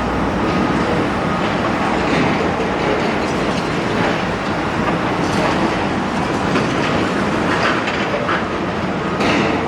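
Large Doosan demolition excavator working: its diesel engine runs steadily under a continuous clatter of cracking concrete and falling debris, with scattered sharp knocks.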